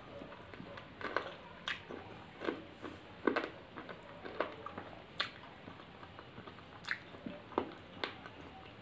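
Close-up chewing and wet lip-smacking of a person eating chicken curry and rice by hand, with sharp irregular smacks and clicks of the mouth a few times a second.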